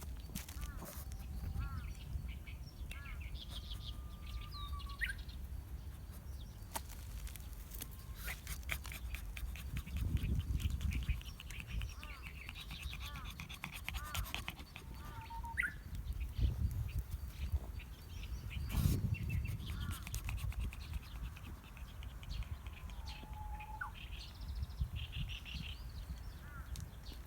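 Birdsong: a Japanese bush warbler three times gives its long whistled note that breaks into a quick rising flourish, amid many short chirps from other small birds. A low rumble runs underneath and swells a few times.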